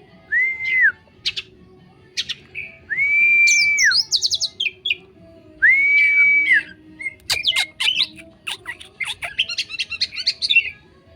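Oriental magpie-robin (kacer) singing: three long, level whistles that each rise at the start and drop off at the end, about a second apiece, mixed with quick chirps and sharp high twitters that crowd together in the second half.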